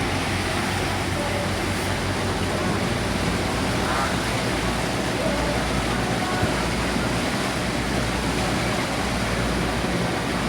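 Steady noise of a tour boat under way: a low engine drone mixed with rushing water and wind.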